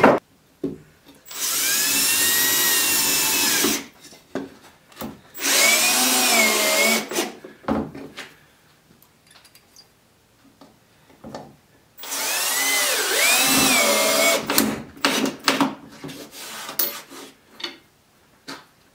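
Handheld power drill run in three bursts, its motor pitch dipping and rising as the trigger is worked. Short clicks and knocks of tools sound between the runs.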